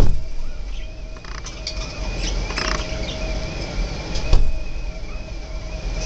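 Short, scattered budgerigar chirps and beak clicks over a steady low background rumble, with one sharp click about four seconds in.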